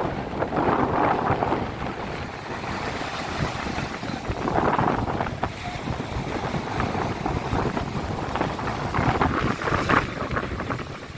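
Sea waves washing onto a beach, with surges of surf near the start, about halfway through and near the end, over wind noise on the microphone.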